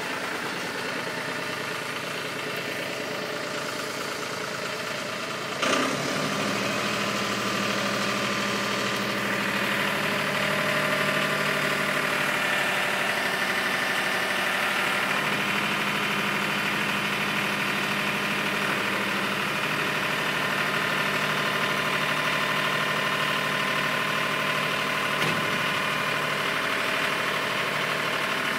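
John Deere loader tractor's engine running steadily under load as it pushes a small tractor. A single sharp clunk comes about six seconds in, after which the engine runs louder with a deeper note; a lighter knock comes near the end.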